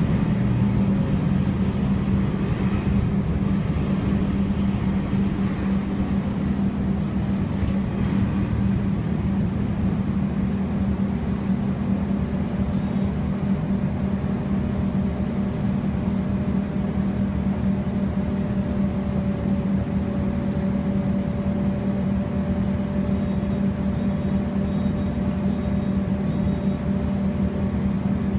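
Cabin noise of a MAN Lion's City city bus: its engine runs with a steady low hum as the bus slows from moving in traffic to standing at idle. A faint steady whine joins about twelve seconds in.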